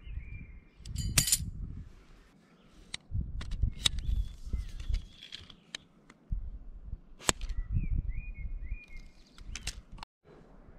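Sharp clicks and knocks of tent pegs and aluminium poles being handled while a one-man tent is pitched, over patches of low rumble. A bird chirps briefly a couple of times.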